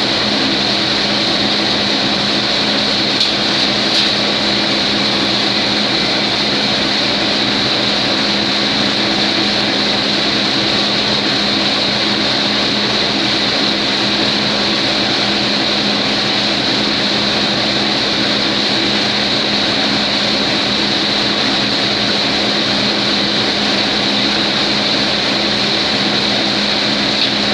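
Siberian pine cone processing machine running steadily, a continuous mechanical hum with a strong hiss over it.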